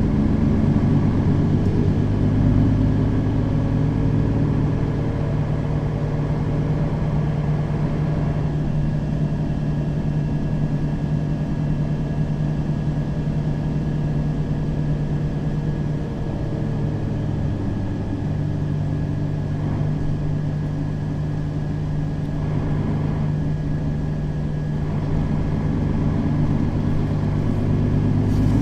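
Mercedes-Benz Citaro facelift city bus engine running while driving: a steady low drone whose note shifts briefly just past the middle, with a faint steady high whine above it.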